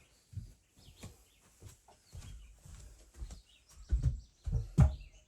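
A series of irregular knocks and thumps, the two loudest near the end, with a few faint chirps of a small bird.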